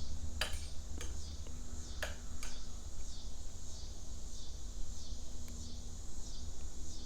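A few small, sharp clicks of plastic and metal control-panel parts being handled and fitted together, over a steady low hum and a constant high chirring of insects.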